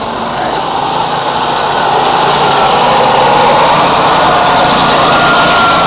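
Small go-kart engines buzzing on a track, one kart passing close by so the engine sound swells over the first couple of seconds and stays loud.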